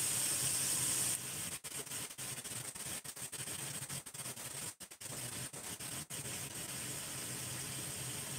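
Beef sizzling in a stainless steel wok as it is stir-fried, a steady hiss. It drops a little about a second in, and briefly cuts out several times in the middle.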